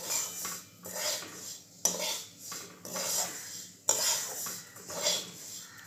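Spatula scraping and stirring coarse moong dal flour as it roasts in ghee in a kadhai, in repeated strokes a little over one a second.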